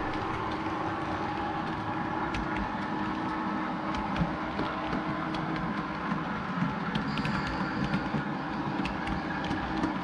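HO-scale model train running along the track: a steady mechanical hum with scattered sharp clicks of wheels over rail joints.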